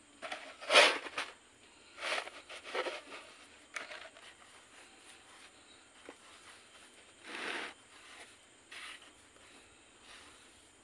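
Fingers pressing and smoothing loose potting mix in a plastic pot: a series of short scratchy rustles, the loudest about a second in, with others around two, three and seven and a half seconds.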